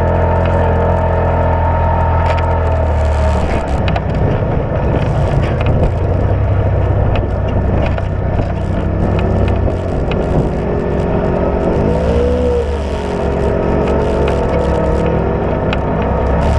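Side-by-side UTV engine running as it drives over a rough dirt trail, with scattered rattles and clicks from the machine over the bumps. From about nine seconds in, the engine note rises and falls several times as the throttle changes.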